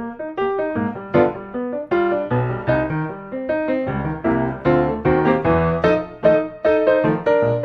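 Background piano music, a steady stream of struck notes and chords.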